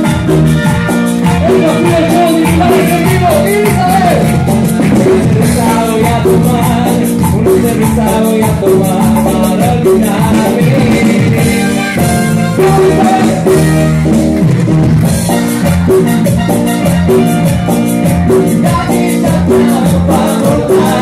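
Live cumbia band playing an instrumental passage: electric guitar, keyboard and drums over a steady dance beat, played loud.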